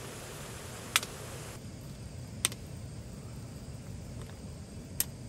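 Metal utensils clinking against a metal camp cooking pot of noodles: three sharp taps, spaced a second and a half to two and a half seconds apart, over a low steady background noise.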